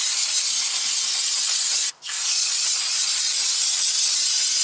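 Aerosol can of brake cleaner spraying in a loud, steady hiss, cut off briefly about two seconds in and then sprayed again until the end.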